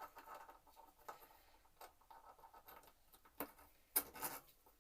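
Faint scraping and handling of a hand tool and bolt on a mountain bike rear hub as the bolt is put back in, with a few sharp metallic clicks near the end, the loudest about four seconds in.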